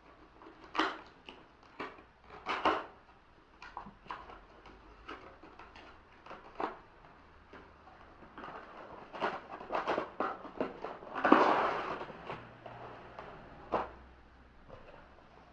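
A cardboard box and its packaging being opened and handled by hand: irregular taps, knocks and scrapes, with a longer rustle about eleven seconds in.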